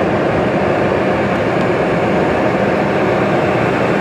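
Steady engine noise of a Boeing 747-400 taxiing, its Rolls-Royce RB211 turbofans heard from inside the cabin as an even, unbroken roar.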